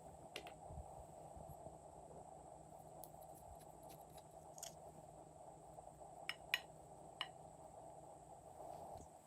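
Glossy slime being worked by hand, faint, with a few short sharp clicks and pops, the loudest about six and a half seconds in.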